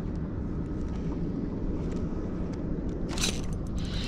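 Steady low rumble on a fishing boat, with a short burst of hissing, swishing noise about three seconds in as the crappie rod is swept up to set the hook.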